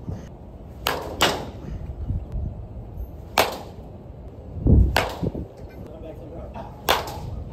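Baseball bat striking balls during batting-cage swings: about four sharp cracks, roughly two seconds apart, the one about five seconds in with a heavy low thud.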